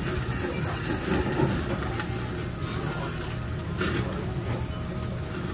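Meat sizzling on a tabletop yakiniku grill, with fat dripping from the meat and flaring up in the flames. A few sharp clicks of metal tongs against the grill grate come through the sizzle.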